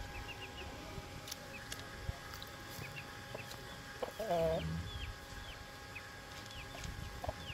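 Brahma chicks peeping repeatedly: short, high peeps that bend downward, several a second. About four seconds in, a Brahma hen gives one louder, wavering cluck lasting about half a second, the loudest sound.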